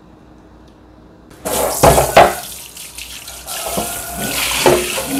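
Tap water running into a non-stick frying pan in a stainless steel sink while it is scrubbed. The water starts suddenly about a second and a half in, with two loud knocks just after and lighter scraping and clatter.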